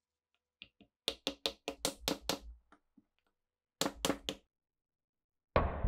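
Steel hammer tapping on a rusty SVT-40 rifle part clamped in a vise: a run of about seven sharp knocks, about four a second, then a pause and three more. Near the end comes a sudden loud bang with a fading tail.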